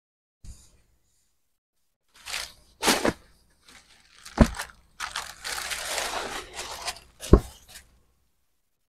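Rustling and crinkling of cotton fabric being folded and handled, with the plastic packaging on the floor. A few sharp knocks come through, the loudest near the end.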